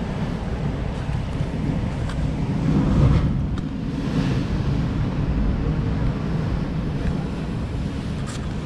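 Sea surf washing against a rocky shore, with wind rumbling on the microphone; the surf swells to its loudest about three seconds in.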